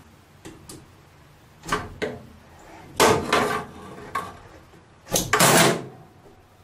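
Hand tools working a screw into a T-nut held with locking pliers: a few short scraping, clattering bursts, the loudest two in the middle and near the end.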